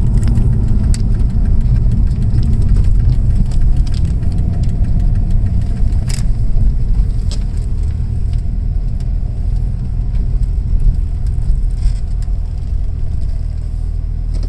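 2001 Audi S4's 2.7-litre twin-turbo V6 running at low revs as the car drives and slows, heard from inside the cabin as a steady low rumble that eases a little toward the end.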